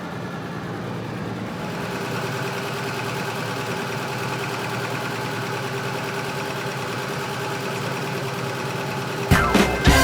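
Volvo 164's B30 straight-six engine idling steadily, its worn engine's blow-by and bottom-end clunk already noted by the owner. Near the end, louder music with sharp beats comes in.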